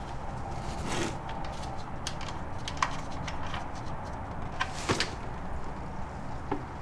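A few scattered light knocks and clinks over a low steady hum: tools and an oil pan being handled under a car before an oil change.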